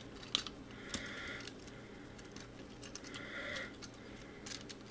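A few light clicks and taps of hard plastic parts being handled and pressed onto a Transformers action figure, with two soft hissing sounds in between.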